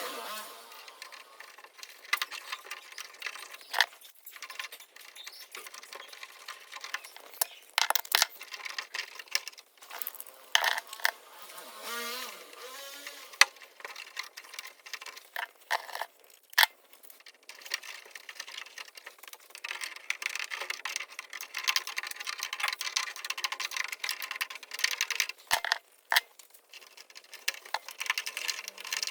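Irregular clicks, taps and rustling of hands-on work with parts and materials, with some sharper knocks scattered throughout.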